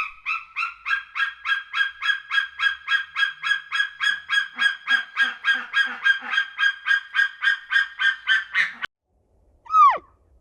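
A bird calling in a rapid, even series of short calls, about four a second, which stops abruptly; near the end comes a single loud call that arches up and then falls sharply.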